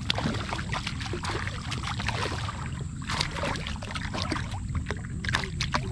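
A hooked smallmouth bass splashing and thrashing at the surface beside a kayak as it is landed by hand, with irregular sharp splashes and water sloshing.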